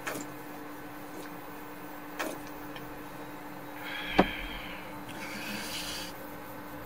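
A few sharp knocks, the loudest about four seconds in, and a short hiss near six seconds, over a steady low hum.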